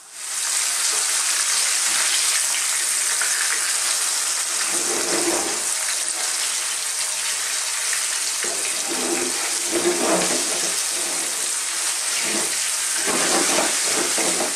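Corn-flour-coated pomfret fish steaks sizzling steadily as they fry in hot vegetable oil in a pan.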